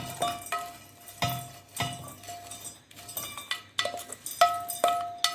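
Metal kitchenware clinking: a spoon knocking and scraping against steel vessels in about a dozen irregular strikes, several leaving a short metallic ring.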